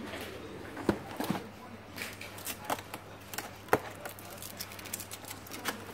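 Cardboard box being handled and opened by hand: an irregular run of sharp taps, knocks and scrapes as the flap and tape are pulled at, over a steady low hum.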